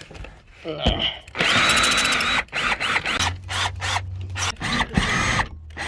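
Cordless drill-driver with a Torx bit backing out the screws that hold the car's plastic splash pan, the motor whining in several bursts, the longest about a second, with a few knocks of the bit and screws in between.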